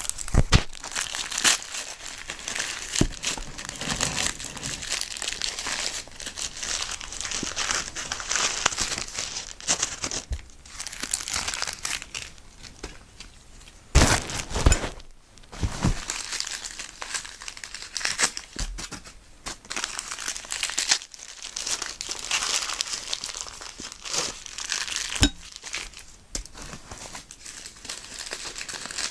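Packaging being crinkled and torn open by hand as wrapped items are unwrapped, with a few sharp knocks about halfway through and again near the end.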